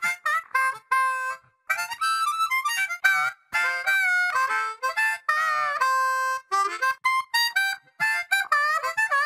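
Solo harmonica intro music: a quick melody of short notes with brief gaps between them, some notes bent in pitch.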